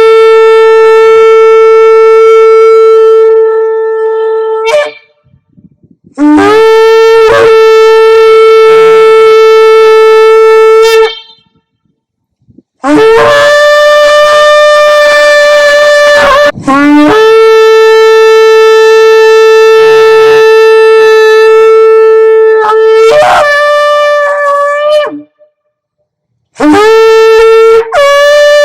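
Shofar blown in long, loud held blasts. Each starts on a low note and jumps up to a steady, brassy higher one. Short silent pauses separate the blasts, with a couple of shorter blasts near the end.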